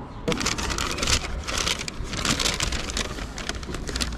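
Brown paper bakery bag rustling and crinkling as a hand reaches in to take out a pastry, a dense run of crackles.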